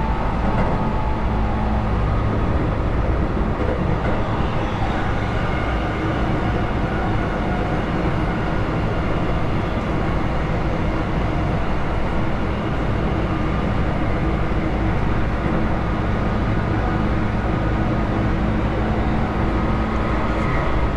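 Cabin noise of a Keihan 8000 series electric train running along the line: a steady rumble of wheels and running gear with a faint whine over it.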